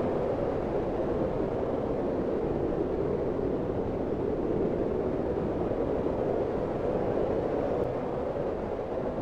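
Strong wind blowing steadily in a blizzard, a dense rushing noise centred in the low-middle range, with small rises and falls in strength but no gusting breaks.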